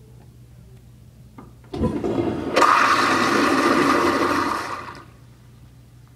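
American Standard Madera 1.6 gpf flushometer toilet flushing: the valve opens with a sudden rush of water about two seconds in, grows louder, holds for about two seconds and then fades out.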